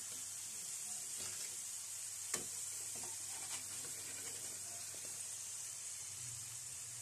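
Potato fries sizzling steadily in hot oil as the finished fries are lifted out with a perforated metal spatula. One sharp knock of the spatula against the pan about two and a half seconds in, and a lighter one a second later.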